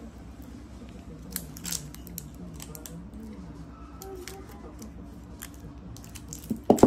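A wooden embossing rolling pin in its plastic wrapping being handled, with light rustles and small clicks over a low steady hum. Near the end there is one sharp knock as it is set down on the glass table top.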